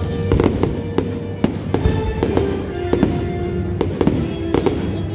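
Fireworks going off in quick succession, sharp bangs about two a second, with music playing under them.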